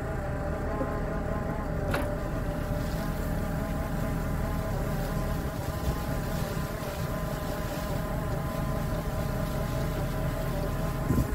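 Agco Challenger tractor running steadily while a rear-unloading forage box empties earlage onto the pile: a constant mechanical drone with a whine over a low rumble. There is one short click about two seconds in.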